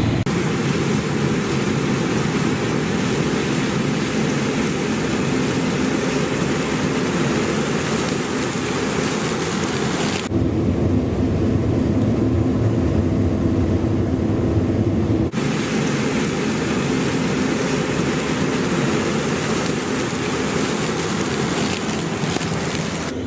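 Claas Lexion 670 combine harvester running while harvesting grain corn: a steady engine hum under a loud, even hiss of machinery and crop. For about five seconds in the middle the hiss drops away and the engine tone is stronger, then the hiss returns.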